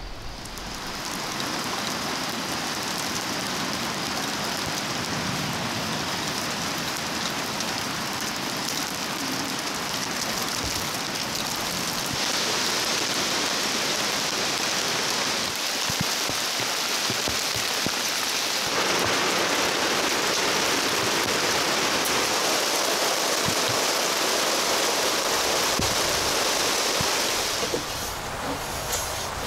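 Steady rain, an even hiss that gets louder about twelve seconds in and again around nineteen seconds, then eases slightly near the end.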